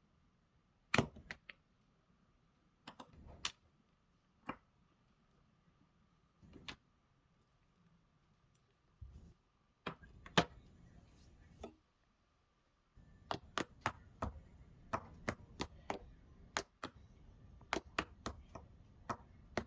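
Sharp taps and clicks, a few scattered ones at first, then a quicker run of about two to three a second starting about two-thirds of the way in, over a faint steady high tone.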